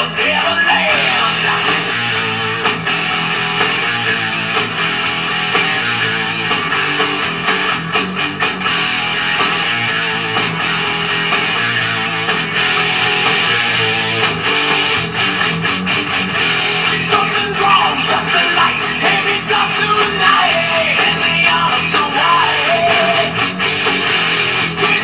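Rock music led by a gold-top electric guitar, picked in fast, busy lines that run without a break.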